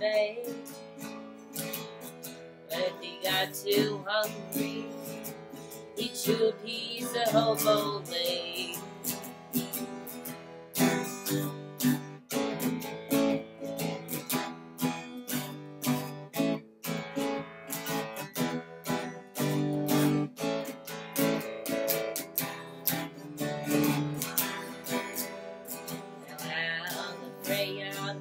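Acoustic guitar strummed in a steady rhythm, with a woman's voice singing a wavering melody over it at times.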